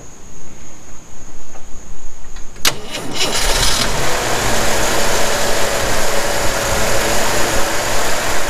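A sharp click about two and a half seconds in, then the 1981 Jeep CJ7's engine, with its Weber 32/36 carburettor, comes in about three seconds in and idles steadily.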